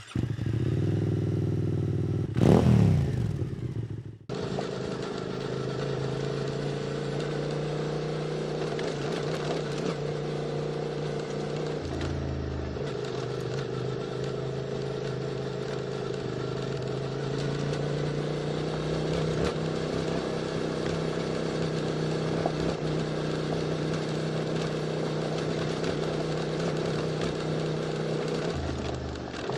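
QJ Motor SVT650X motorcycle engine through an Arrow Racetech slip-on exhaust. A short rev rises and falls a couple of seconds in, then the engine runs steadily under way. The note shifts about twelve seconds in and again near the end.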